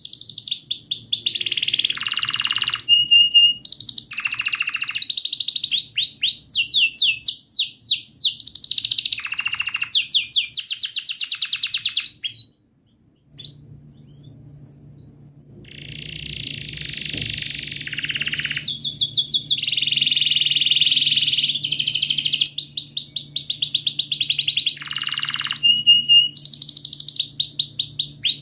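Domestic canary singing a long, high-pitched song of fast repeated chirps and rolling trills. About twelve seconds in, the song cuts off for a moment, then comes back quietly and builds up again.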